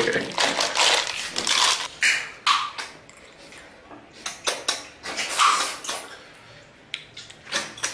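Snail shells clattering against a metal pot as they are stirred with a spoon, then short sucking slurps as a snail is sucked out of its shell.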